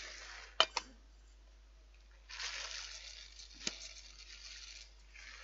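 Dry basmati rice poured from a plastic bag into a metal saucepan: grains hissing into the pan in two spells, with two sharp clicks about half a second in and another about three and a half seconds in.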